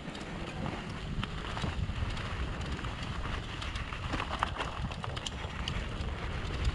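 Wind rushing over the microphone of a mountain bike racing downhill on a dirt trail, with the tyres rolling over the ground and many scattered clicks and rattles from the bike over the rough track.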